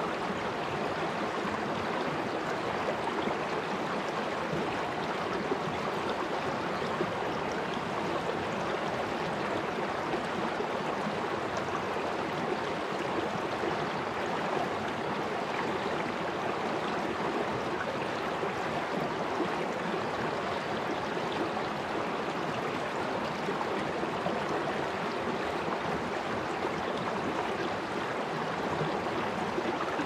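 Shallow mountain stream flowing fast over stones and rippling around rocks, a steady, even sound of running water.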